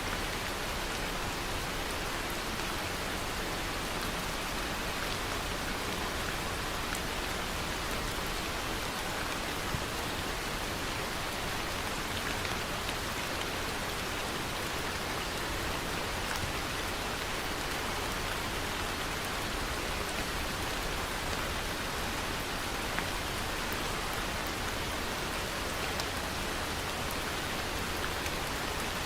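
Steady rain falling, an even hiss of many drops with faint scattered individual drop ticks.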